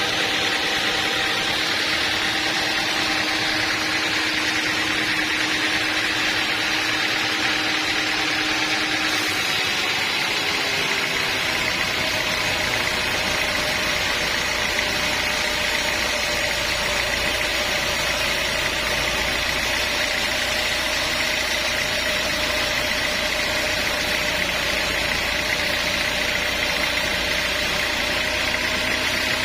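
A machine engine running steadily, with its note changing about ten seconds in as a deeper rumble comes in.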